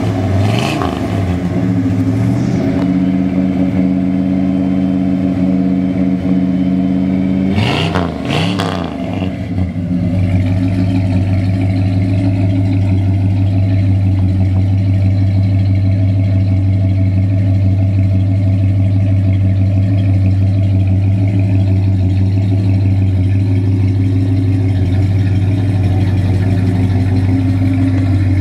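A 1979 Chrysler Cordoba's V8 running through its new exhaust. It is revved in quick blips at the start and again about eight seconds in, then settles into a steady idle with a deep, even drone.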